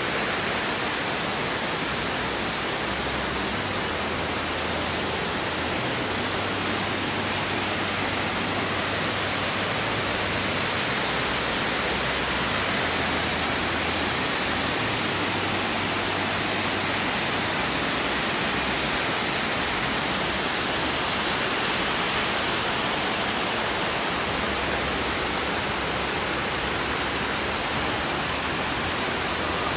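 Steady, even rush of falling water from the Amicalola Falls waterfall, with no change in level.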